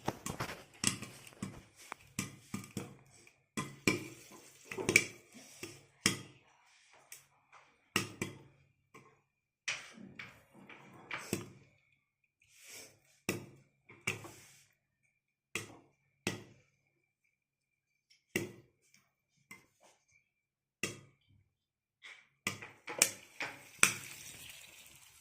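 A series of irregular sharp taps, about one or two a second, some of them followed by a brief ringing tone.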